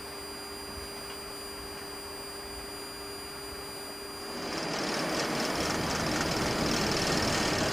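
Airbus A330-200 cockpit: a quiet, steady hum with a thin high whine, then about four seconds in a broad rushing noise swells up and holds as the engines come up to takeoff power and the aircraft rolls down the runway.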